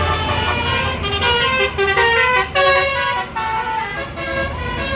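Telolet basuri melodic air horn on a tour bus playing a tune: a run of clear horn notes stepping up and down in pitch, with short breaks between phrases, over a low rumble of road traffic.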